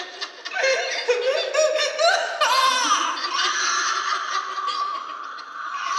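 A woman's voice laughing in quick bursts that jump in pitch, then holding a long high-pitched cry through the second half.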